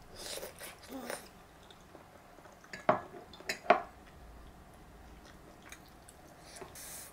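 Table eating sounds: a soft sip of soup from a ceramic bowl, then two sharp clinks of ceramic bowls and chopsticks against tableware about three seconds in.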